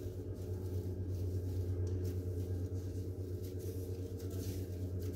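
A broom sweeping a tiled floor, its bristles giving faint short swishes now and then, over a steady low electrical-sounding hum.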